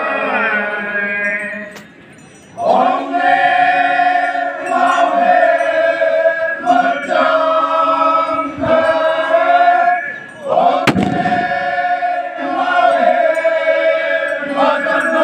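A group of Konyak Naga men chanting a folk song in unison, in long held notes that break off for breath twice, about two seconds in and again about ten seconds in. A sharp crack sounds just as the chant resumes the second time.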